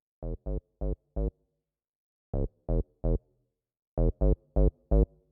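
Background music: short, clipped synthesizer chords played in groups of four, three and four, with full silence between the groups.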